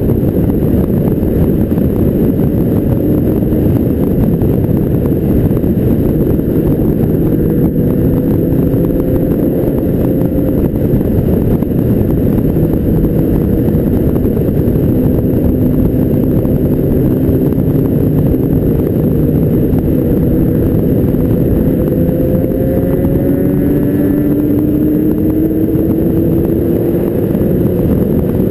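Motorcycle riding at road speed: a steady rush of wind over the camera microphone with the bike's engine running underneath, its note climbing slowly a couple of times, most clearly in the second half.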